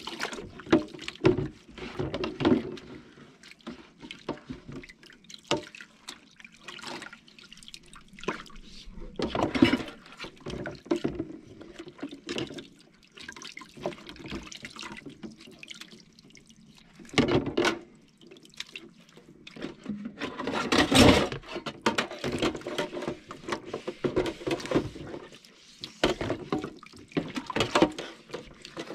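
Dishes being washed by hand in a kitchen sink: water splashing and dripping, with irregular knocks and clinks of utensils and dishes. There are two louder stretches of water, about halfway and about two-thirds of the way through.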